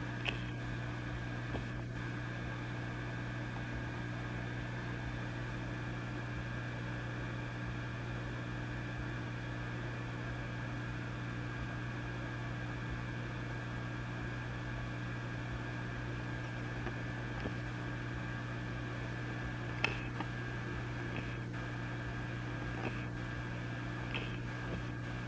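Vintage tube amplifier switched on and idle, giving a steady low mains hum with a few fainter higher tones over a bed of hiss. A few faint crackles come just after the start and again about twenty seconds in.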